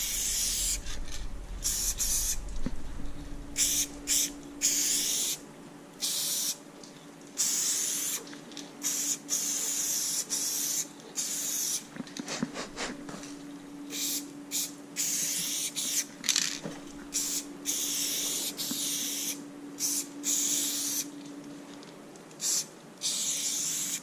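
Aerosol spray paint can spraying in repeated hissing bursts of varying length, with short breaks between strokes. A faint steady hum runs underneath through most of it.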